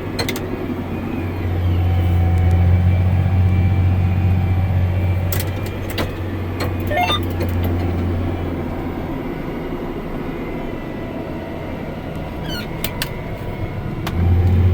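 Tractor engine running under load, heard from inside the cab as a steady low drone that eases off for several seconds and comes back up strongly near the end. A few sharp clicks and a brief rising squeal come through over it.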